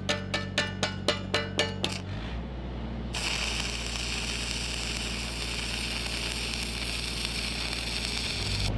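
Stick-welding arc from a 7014 rod crackling and sizzling steadily, starting about three seconds in, over the steady hum of a Lincoln SAE-300 engine-driven welding machine. Before the arc, a quick run of light metallic taps, about four a second, lasts roughly two seconds.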